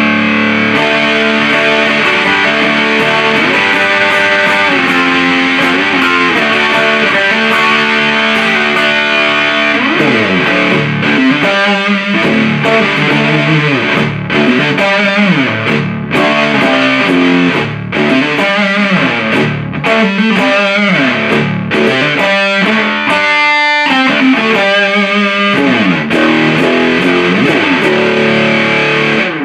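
Electric guitar played through a 77 Fuzz Blender fuzz pedal into an Orange Super Crush 100 amp, giving a thick distorted tone. It starts with about ten seconds of held chords, then moves into riffing with sliding notes and short stops, and cuts off suddenly at the end.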